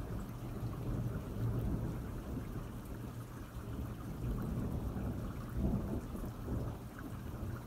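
Thunder rumbling low and long over steady rain, swelling about a second in and again near the end.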